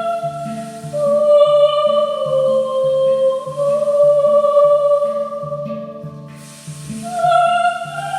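Celtic-style music: a woman's voice sings long held notes without words over a steady low hand-drum beat. The voice fades briefly and comes back on a higher note near the end.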